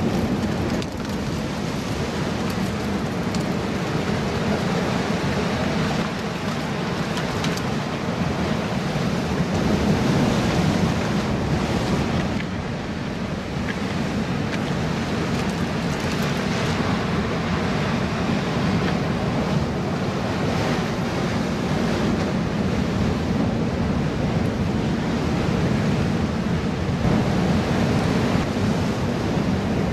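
Ocean surf breaking and washing against a boulder rock wall, a steady rushing noise that swells and eases slightly, with wind buffeting the microphone.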